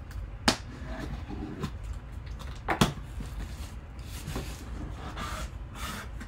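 Taped cardboard shipping box being opened by hand. There are two sharp knocks of cardboard, about half a second in and near three seconds, then the flaps scrape and rustle as they are pulled apart.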